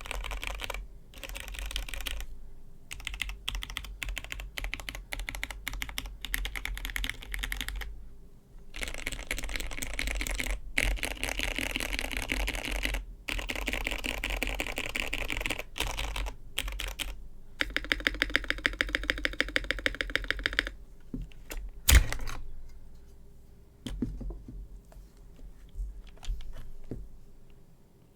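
Fast typing on a custom aluminum-plate mechanical keyboard with lubed linear Cherry MX Hyperglide Black switches, PBT keycaps and a PE foam mod. The keystrokes come in quick runs with short pauses, and there is one louder single knock a little past two-thirds of the way through. After that the keystrokes thin out and stop.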